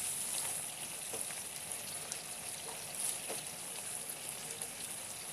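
A thick curry of chicken gizzards, liver and potatoes sizzling steadily in a non-stick wok, with a few faint scrapes as a silicone spatula stirs it.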